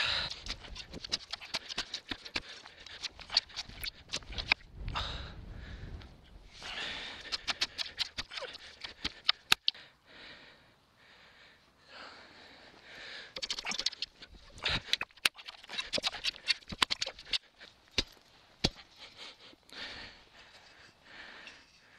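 Hollow clay bricks being dug into the soil and set by hand: irregular sharp clicks and knocks with stretches of scraping as soil is moved and the bricks are shifted into place.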